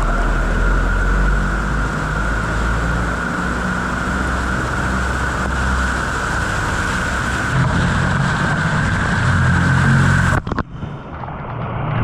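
Loud, steady rush of floodwater running hard down a flooded street, with a low rumble under it. It cuts off abruptly about ten seconds in, and a quieter scene follows.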